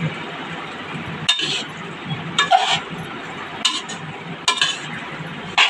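A metal spoon scraping and clinking against a steel kadai while stirring pasta, about once a second.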